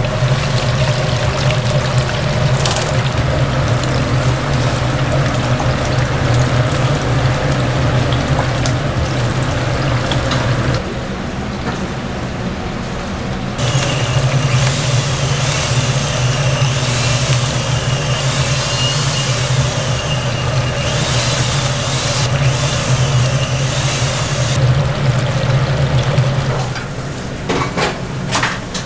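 Chicken deep-frying in hot oil: a steady sizzle over a low hum, turning brighter and hissier from about 14 to 25 seconds in.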